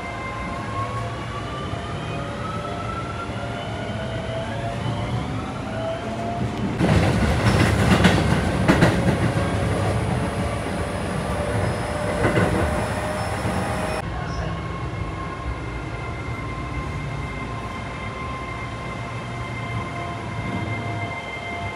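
Electric train running: a whine that climbs in pitch over the first few seconds, then a loud rushing noise for about seven seconds, then steady running with a level whine.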